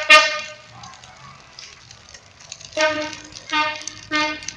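Car horn sounding in short, repeated toots. One blast ends just at the start, and after about two seconds of pause the toots resume near the three-second mark, roughly one every half second.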